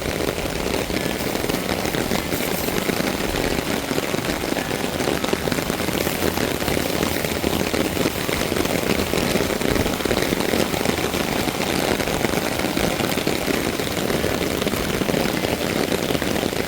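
Steady rain falling, an even hiss of noise that holds at one level throughout.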